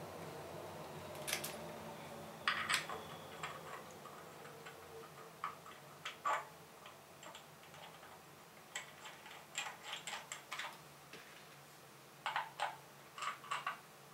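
Small irregular clicks and ticks, several in quick clusters, as screws and a small hand tool knock against the Explore Scientific Twilight I mount head while the camera tripod adapter is lined up and screwed on.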